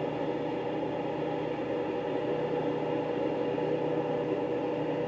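Steady machine hum with several constant tones and no change in pitch or level.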